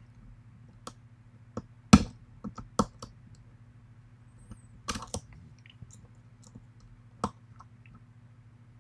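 Irregular metallic clicks and taps of a lock pick and tension wrench working the pins of a challenge lock, the loudest about two seconds in and another cluster around five seconds, over a steady low hum.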